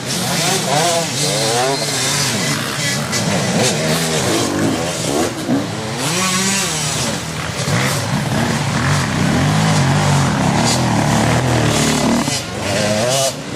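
Dirt bike engines revving hard on an uphill climb, the pitch rising and falling with the throttle as the riders work up the slope.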